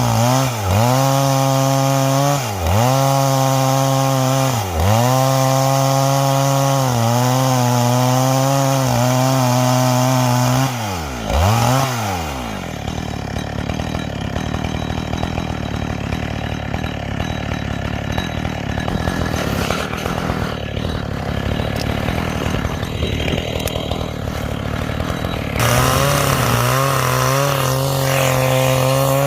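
Chainsaw ripping a garapa log lengthwise with a square-ground chain: the engine runs at high revs and dips under load about every two seconds. About a third of the way in the revs fall away to a lower, rougher running, then it revs back up a few seconds before the end.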